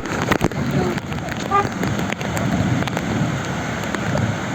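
Steady rain falling, an even hiss, with a few faint voices briefly about a second and a half in.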